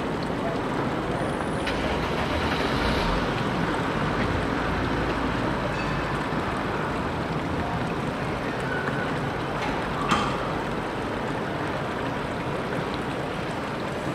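Steady city street traffic noise around trams and a box delivery truck moving close by, with a short knock about ten seconds in.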